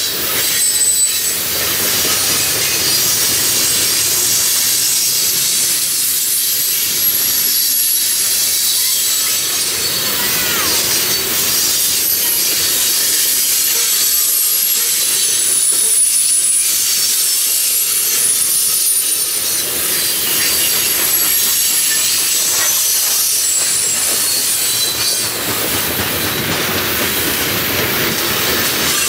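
Freight train's open-top coal cars rolling past: a steady rumble of steel wheels on rail, with high-pitched wheel squeal coming and going.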